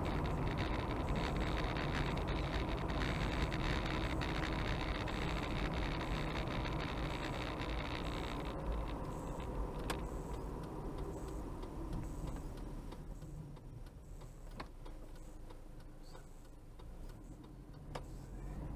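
Car driving on a sealed country road, heard from inside the cabin: steady engine and tyre rumble with road hiss. It grows quieter about halfway through and picks up again near the end, with a few faint clicks.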